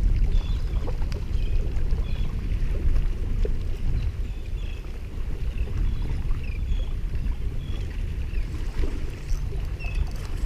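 Steady low rumble of wind and water sloshing on a camera microphone held just above the water, with faint short high chirps scattered throughout.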